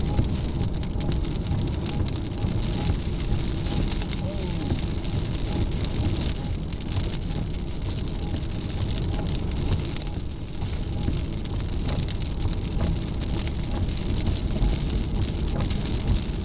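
Car driving through rain, heard from inside the cabin: steady road and tyre noise with raindrops ticking on the windshield.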